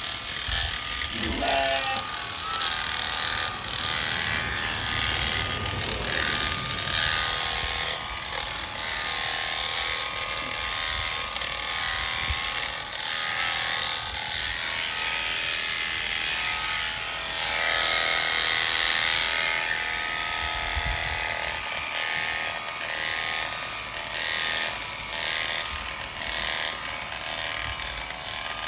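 Premier One electric sheep-shearing clippers running steadily, the comb and cutters buzzing as they shear through a ram's fleece.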